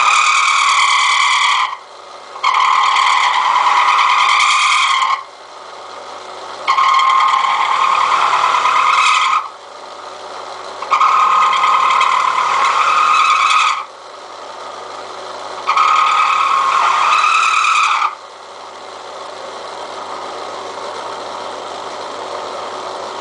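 Old milling cutter biting into hardened railroad-rail steel in five separate passes, each a loud, high-pitched chattering screech lasting two to three seconds, with the milling machine running steadily between passes. The material work-hardens as it is cut, which is hard on the worn cutter.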